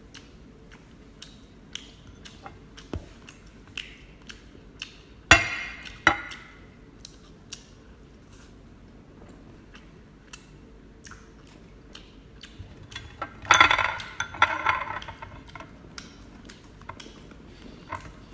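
Scissors snipping and cracking through king crab shell in scattered sharp clicks, with ringing clinks of metal or shell against dishes: two loud ones about five and six seconds in and a louder run of clinks around thirteen to fifteen seconds. The scissors are cutting slowly through the hard shell.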